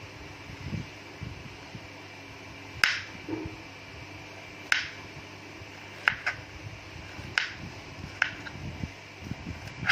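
A knife cutting fresh ginger into pieces on a cutting board: a sharp click each time the blade goes through and meets the board, at an irregular pace of roughly one cut every second or two, some in quick pairs.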